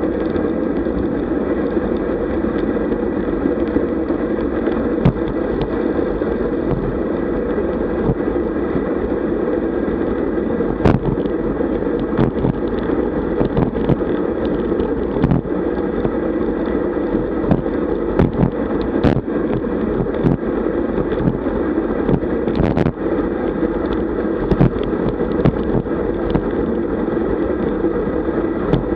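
Wind rushing over the microphone of a bike-mounted camera at about 40 km/h, mixed with the steady noise of road-bike tyres on a dirt road. Frequent short knocks and rattles come from the bike going over bumps.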